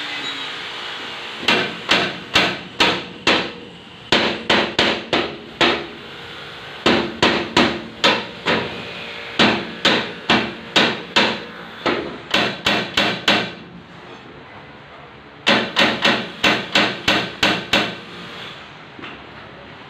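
Hammer blows on an old metal window frame, struck in six quick bursts of five to eight blows at about three a second, with short pauses between bursts. At the very start a power tool's whine is dying away.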